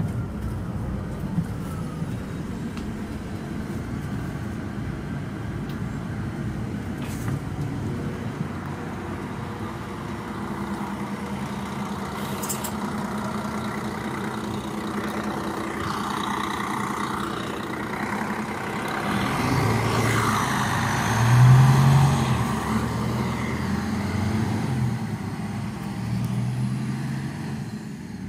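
MAN D2866 inline-six diesel of a Neoplan Centroliner city bus idling steadily while the bus stands, with a louder stretch about two-thirds of the way through.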